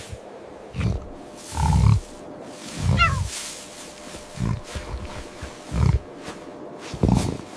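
Amur tiger giving a series of short, low growls, about six spread over several seconds. A brief high squeal falling in pitch comes about three seconds in.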